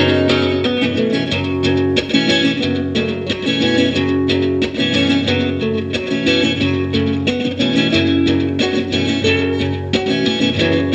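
Guitar-led music with a steady rhythm, starting suddenly at full volume.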